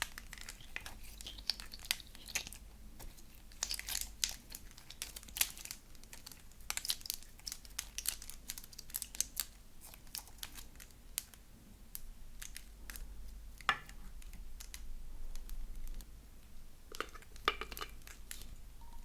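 Slime being kneaded and mixed by hand: irregular wet crackles and pops in quick clusters, with a few louder crackles near the end.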